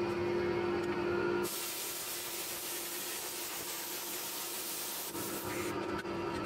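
Hand plasma cutter cutting sheet steel: the arc and its air jet make a steady hiss for about four seconds, starting about a second and a half in. A steady hum is heard before the cut starts and again near the end.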